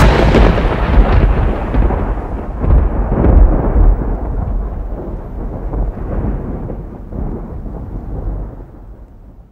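A long, deep rumble that follows a loud hit and slowly dies away, its higher part fading first, with a few swells in the first four seconds.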